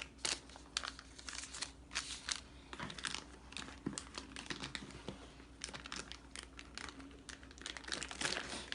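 Packaging being handled during unboxing: irregular crinkling and rustling with many short crackles.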